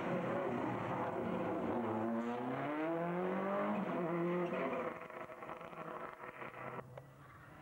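Subaru Impreza WRC rally car's turbocharged flat-four engine revving hard as the car accelerates out of a bend, pitch climbing through a gear change, then fading as it drives away about five seconds in.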